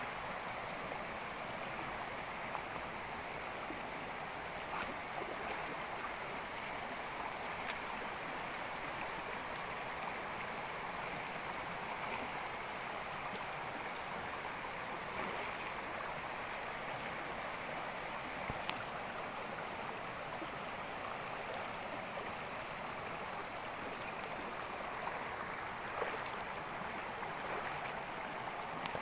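Steady rushing of a flowing stream, with a few faint clicks scattered through it.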